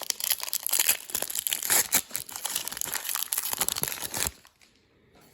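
Crinkling of a foil trading-card pack wrapper being handled and torn open, a dense crackle that stops about four seconds in.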